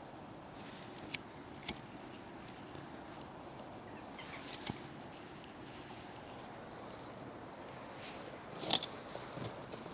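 A small songbird repeating a short phrase of two or three high, falling chirps about every three seconds, over a steady outdoor hiss. A few sharp clicks or snaps come through, the loudest near the end.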